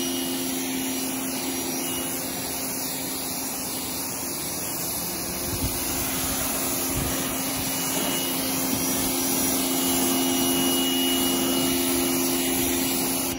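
Pressure washer running steadily, its motor and pump humming under the hiss of the water jet spraying against a pickup truck's body panels while rinsing it. The spray stops at the very end.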